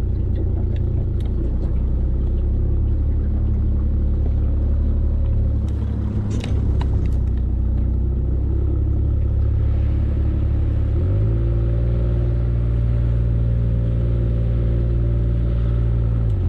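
Boat engine running steadily at low speed; about eleven seconds in it revs up a little and holds the higher pitch, then drops back near the end. A few sharp ticks sound about six seconds in.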